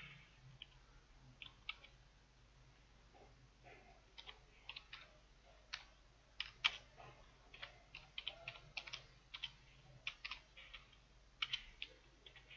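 Computer keyboard typing in uneven runs of key clicks, sparse at first and quicker from about four seconds in.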